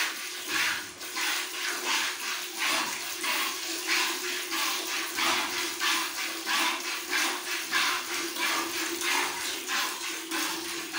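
A cow being milked by hand: rhythmic squirts of milk shooting into the milk vessel, about two a second.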